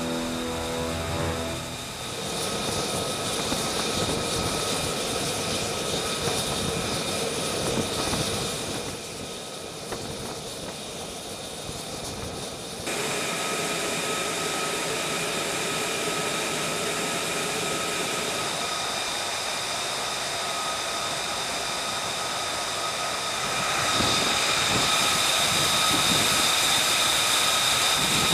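Jet engine noise on an aircraft carrier flight deck: a steady rush with a high whine, changing abruptly in level and pitch a few times.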